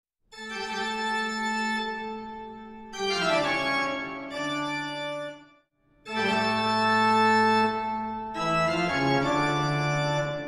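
Organ music playing sustained chords that change every second or two, breaking off briefly about halfway through and starting again.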